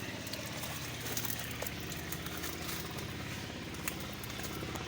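An engine running steadily at low speed, a low even hum with faint scattered clicks over it.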